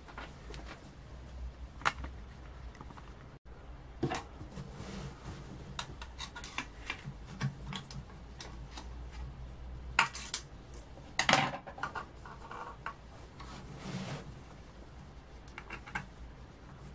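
Small metal parts of a piston compressor being handled and fitted into its open crankcase: scattered clicks, clinks and light scraping, the loudest about ten and eleven seconds in. The compressor's motor is not running.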